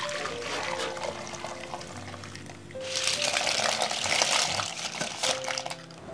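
Broth poured from a bowl into a pot, then boiled surf clams tipped from a colander into it about three seconds in, the shells clattering and splashing into the liquid for a couple of seconds. Soft background music plays throughout.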